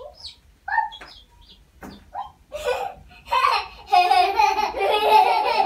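A little girl laughing: a few short high squeals at first, then a long, loud run of high-pitched laughter from about three seconds in.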